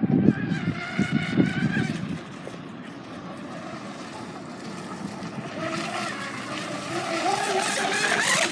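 Electric RC speedboat's 2075kv brushless motor whining at speed, with the hiss of its hull and spray, faint while the boat is far out and growing louder over the last few seconds as it runs closer. Wind buffets the microphone in the first couple of seconds.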